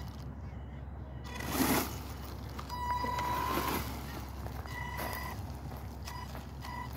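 Twin stock 550 brushed electric motors of a Wltoys 124018 6x6 RC crawler driving over wood chips, a high whine that comes and goes several times with the throttle. There is a short rush of noise about a second and a half in as the six tyres churn the chips.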